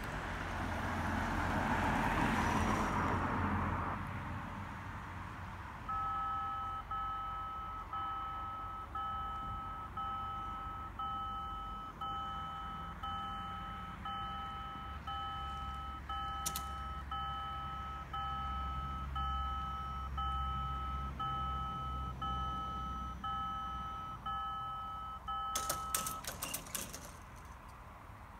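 A car drives over the crossing in the first few seconds. About six seconds in, the level crossing's electronic warning bell starts, a beeping tone repeating about once a second, and rings for about twenty seconds while the barrier arms lower. A cluster of clicks comes just before the bell stops, near the end.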